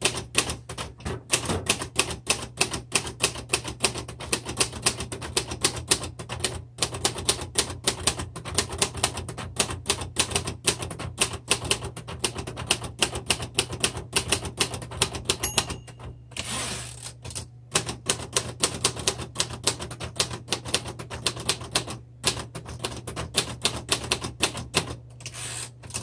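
Royal Heritage III manual typewriter typed on at a steady pace, the type bars striking at about four to five a second. About two-thirds of the way through, a short bell ring comes just before a pause with a sliding sweep, the carriage being returned, and then the typing carries on.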